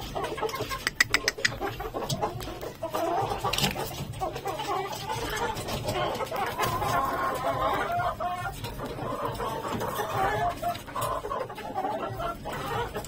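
Chicken clucking in a low, continuous chatter while pecking at feed, with a quick run of sharp clicks about a second in.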